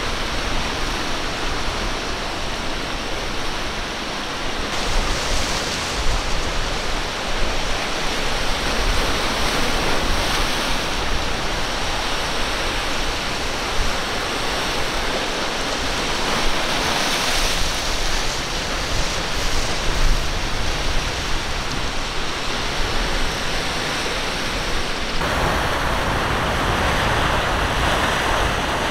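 Rough surf and breaking waves making a steady wash of noise, with wind on the microphone.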